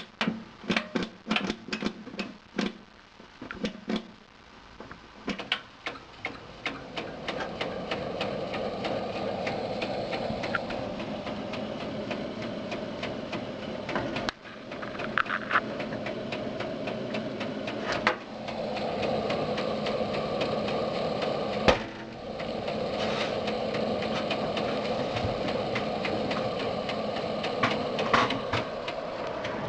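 Desktop computer system unit knocking repeatedly as it struggles to start, then its fans running with a steady whir and scattered clicks, dropping out briefly twice. The knocking and hard start point to a fault in the unit.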